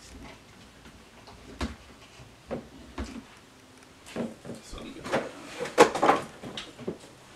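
Scattered knocks and clunks of studio gear being handled: a metal X-frame keyboard stand being adjusted and a synthesizer set down on it. The knocks come about a second apart, with the loudest cluster of clatter about six seconds in.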